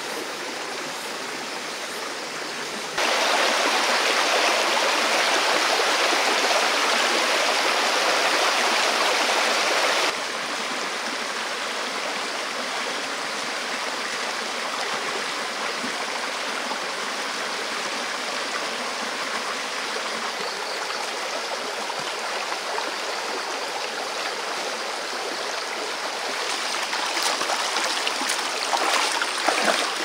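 A shallow, rocky stream flowing and burbling steadily, louder for several seconds a few seconds in. Near the end there is splashing as bare feet wade through the water.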